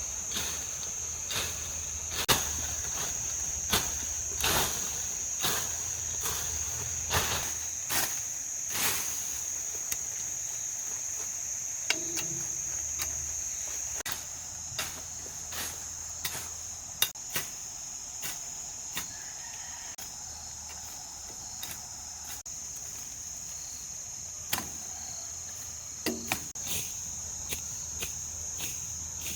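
Steady high-pitched insect drone, with a string of sharp knocks about once a second for the first ten seconds, then scattered knocks.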